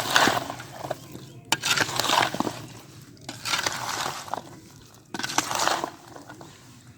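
Lemon pieces being mixed with spices and oil in a large vessel for lemon pickle: repeated mixing strokes, about one every one to two seconds, with a few sharp clicks against the vessel.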